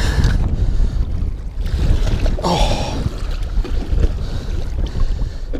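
Wind buffeting the microphone over waves slapping against the side of a small fishing boat on choppy water. There is one short, louder noise about halfway through.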